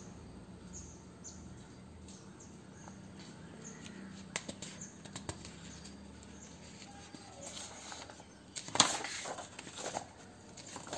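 Paper pages of a school textbook being turned by hand: a few light handling clicks early on, then a burst of rustling and flapping from about seven and a half seconds in, loudest just before nine seconds.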